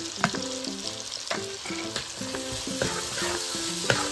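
Onion and tomato masala sizzling in a frying pan as ginger-garlic paste goes in and is stirred, with a spatula scraping and knocking against the pan a few times, the sharpest near the end.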